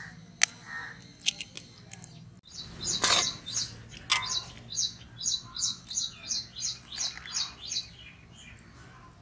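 A few sharp clicks as a knife cracks egg shells. After a brief swish, a bird chirps over and over in short high notes, about two or three a second, for several seconds.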